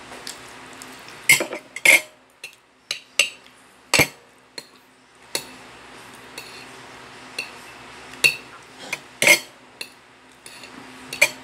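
Metal spoon and fork clinking and scraping against a plate while eating, in irregular sharp clinks spaced from a fraction of a second to a couple of seconds apart.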